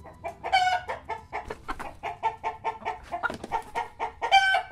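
Chickens clucking in a quick run of short clucks, with two longer drawn-out squawks, one about half a second in and one near the end.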